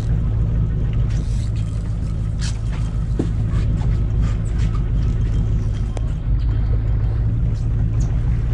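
Fishing boat's engine running steadily, a constant low hum, with scattered light clicks and knocks and a short hiss about a second in.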